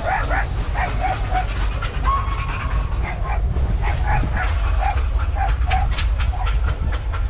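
Massey Ferguson 240's three-cylinder diesel idling with a steady low rumble. A dog barks several times in short runs, about a second in and again about five seconds in.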